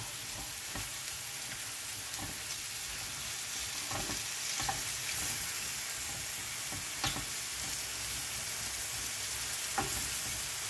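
Mushrooms sizzling as they brown in a stainless steel frying pan, stirred with a wooden spatula that knocks against the pan now and then.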